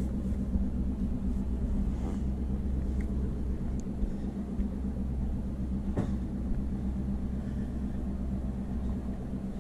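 Engine running steadily, a low even hum, with a single sharp click about six seconds in.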